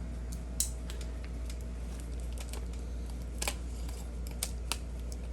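Light clicks and clatter of new brake pads and their packaging being handled and laid out, over a steady low hum.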